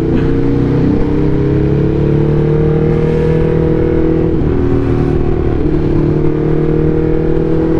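Motorcycle engine running steadily while riding, with wind rush over the rider's microphone. The engine pitch climbs a little over the first few seconds, then holds, dipping briefly twice near the middle.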